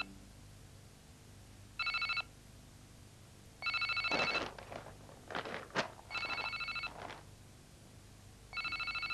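Landline telephone ringing: a short electronic warbling ring repeated about every two seconds, four times. A few sharp rustles and knocks fall between the rings near the middle.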